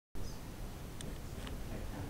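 Blizzard wind buffeting the microphone as a steady low rumble, with a couple of faint clicks about a second in and again a moment later.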